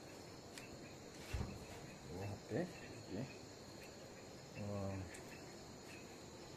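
Crickets trilling steadily in a faint high chorus at night, with a few short, low voice sounds and a single knock in the background.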